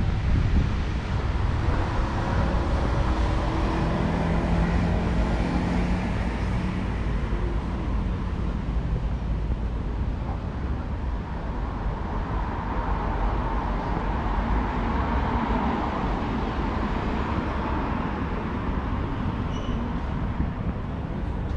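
Road traffic on a city street: vehicles passing with continuous engine and tyre noise. A low engine hum from a passing vehicle carries through the first half, and the tyre noise swells around the middle.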